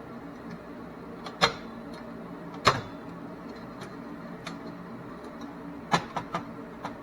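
Sharp plastic clicks from Xbox One S internal parts being handled and pried as the cooling fan is worked loose: two single clicks, then a quick run of three, over a steady low hum.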